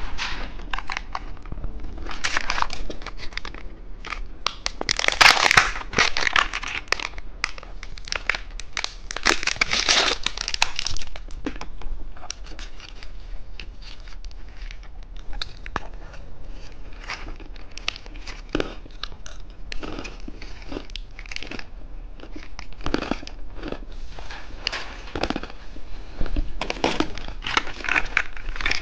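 Plastic candy wrappers crinkling and tearing as packets are opened. The crackling is dense for the first ten seconds or so, then turns to scattered crinkles.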